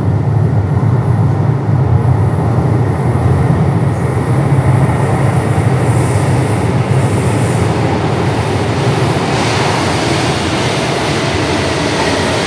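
A São Paulo Metro Frota I train arriving at an underground station: a steady low rumble from the tunnel, which grows from about ten seconds in into louder, hissing wheel-and-rail noise as the cars run in along the platform.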